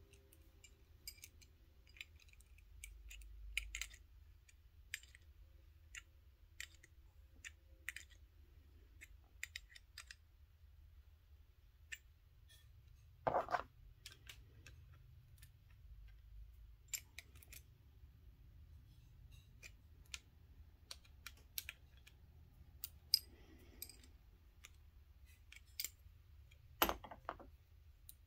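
Small metal clicks and ticks at irregular times as little hose fittings and a small open-end wrench are handled and tightened. A louder knock comes about halfway through and another near the end.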